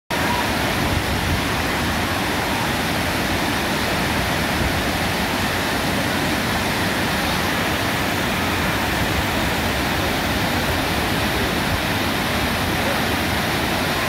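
Waterfall on the Willow River: falling water making a steady, unbroken rush.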